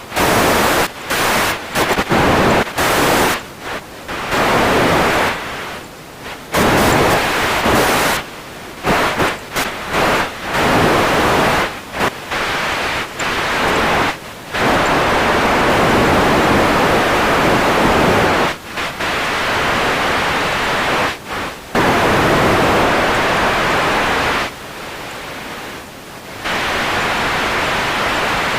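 Radio static: a dense hiss that keeps cutting out and jumping between loud and softer levels at irregular moments. It holds steady for a longer stretch in the middle, then drops to a softer hiss for a couple of seconds before coming back loud.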